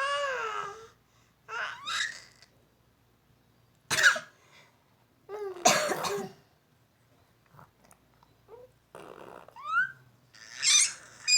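A baby babbling in short, high, sliding cries, with an adult woman coughing a couple of times around the middle.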